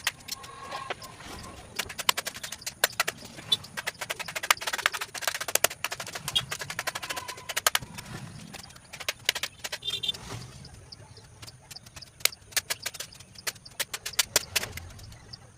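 Sharp, irregular knocks and taps on wood, coming in quick runs of several a second with short gaps between, as in hand work on a sofa's wooden frame.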